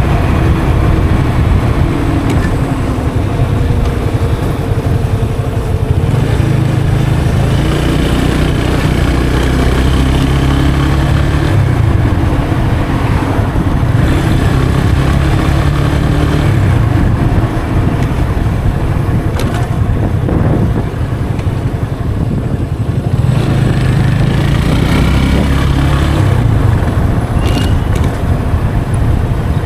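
Yamaha FZ 25's 249cc single-cylinder engine running through its stock exhaust while riding, the engine note rising and falling with throttle and gear changes, easing off about two-thirds of the way through before picking up again.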